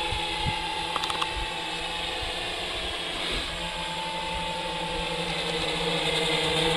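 Large plywood heavy-lift quadcopter in flight: four 1000 kV brushless motors spinning 14-inch carbon-fibre props make a steady droning hum with several held tones. The hum grows louder near the end.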